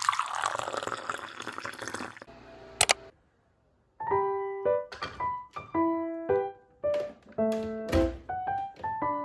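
Soft background music of separate piano-like notes, entering after a second of dead silence. Before the silence, a hissing, rushing noise fades over about two seconds, followed by a single click.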